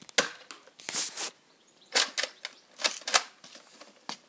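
Nerf blaster firing foam darts one after another: a string of about eight sharp snaps, irregularly spaced, with a quick cluster about a second in.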